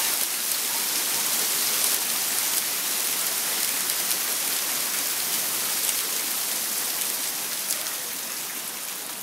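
Heavy hail pelting a driveway, a dense steady hiss of countless small impacts that eases slightly near the end.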